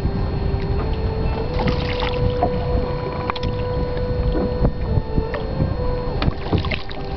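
Wind buffeting the microphone over a rowed gondola under way, with scattered sharp knocks. A steady hum steps up in pitch about a second in and drops back down later.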